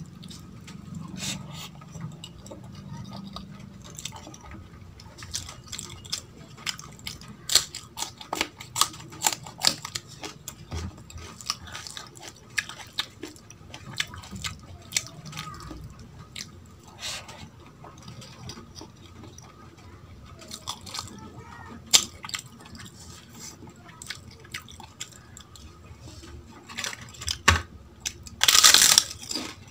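Close-up eating sounds: fingers mixing soft rice and dal on a steel plate, wet chewing and many small mouth clicks. Near the end comes a burst of loud crunching as a papad is bitten.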